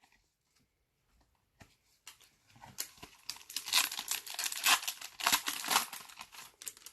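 Foil wrapper of a trading-card pack crinkling and tearing as it is handled and ripped open. It starts about two seconds in as a dense crackle and stops just before the end.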